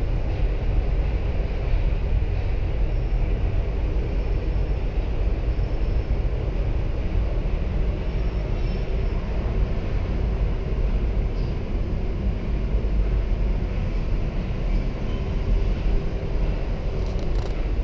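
Steady low rumble inside a moving gondola cable car cabin as it rides along its cable.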